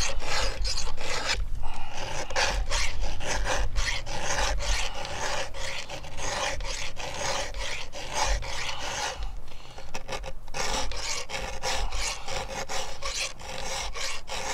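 Chainsaw file being pushed by hand across the cutters of a 3/8-pitch chain on a Stihl MS661 bar, sharpening the teeth: a rasping scrape repeated in quick, even strokes, with a brief pause about nine seconds in.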